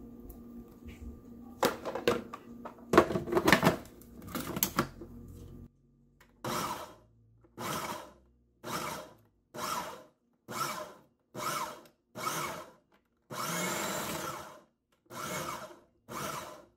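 Black+Decker Quick'N Easy food chopper pulsed in about a dozen short bursts, one of them longer, grinding raw cubed chicken into mince. A few sharp knocks and clatter come before the pulsing starts.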